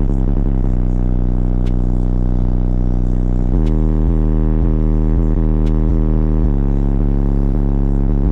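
Car audio subwoofers playing loud, deep bass. A held low note changes to a pulsing bass pattern about three and a half seconds in.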